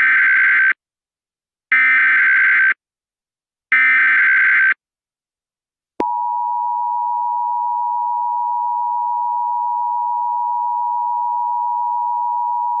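Emergency Alert System tones. Three one-second bursts of buzzy digital SAME header data, about two seconds apart, mark the start of an alert. After a short pause, the steady two-tone EAS attention signal begins about six seconds in and holds.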